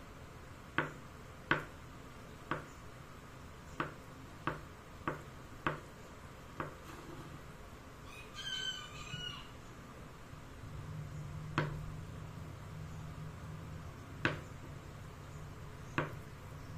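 Kitchen knife cutting firm tofu on a wooden chopping board: sharp knocks of the blade striking the board, eight in fairly quick succession, then three spaced apart. About eight seconds in, a rooster crows briefly.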